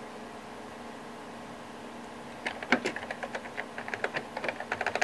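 Typing on a computer keyboard: a quick, uneven run of key clicks that starts about halfway through, over a steady background hum.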